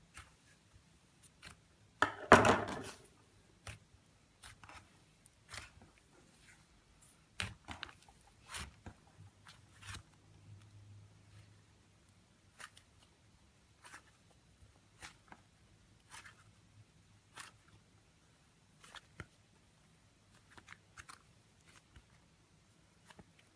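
Textured slime being pressed and pulled by hand, giving short crackling pops at irregular intervals, with a louder, longer burst of crackling about two seconds in.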